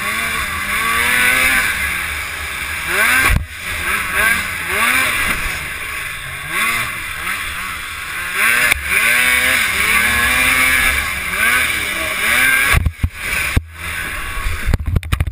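Polaris IQR race snowmobile's two-stroke engine revving up and dropping off again and again as the throttle is worked over a rough trail, over a steady rush of wind and track noise. A few sudden knocks and dropouts come near the end.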